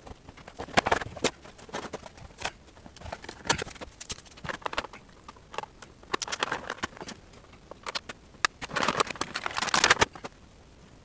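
Plastic action-figure packaging being handled and opened: irregular crinkles, clicks and rustling, with a longer, louder burst of crinkling about nine seconds in.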